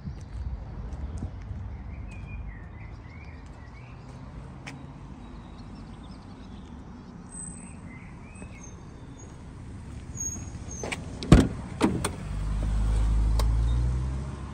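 Small birds chirping over a steady low outdoor background. About eleven seconds in come two sharp clicks of the 1985 Mercedes-Benz coupé's door handle and latch as the door is opened, followed by a low rumble lasting about two seconds.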